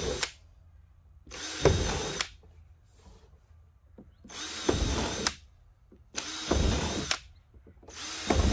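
Power drill with a 7 mm bit boring intake holes through a plastic well pipe, in short runs of about a second each: a bit of one run right at the start, then four more, the last still going at the end.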